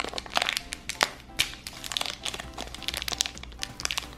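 A small plastic toy wrapper crinkling and crackling in the fingers as it is torn open, with many irregular sharp crackles, over background music.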